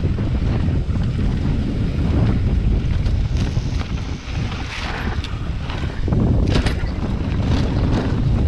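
Wind buffeting the camera microphone as a mountain bike descends a dry dirt singletrack, with the tyres crunching over loose rock and the bike rattling. A burst of sharper clattering comes about six and a half seconds in.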